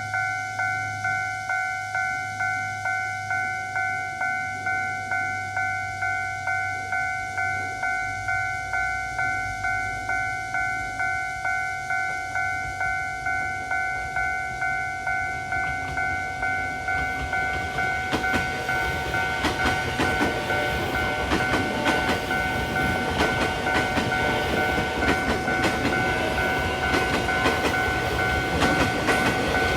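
Railway level-crossing warning bell ringing in a steady repeating ding, about one and a half strikes a second. About eight seconds in, a train's rumble grows under it. From about eighteen seconds in, the train passes over the crossing with wheel clatter on the rails, loudest near the end, while the bell keeps ringing.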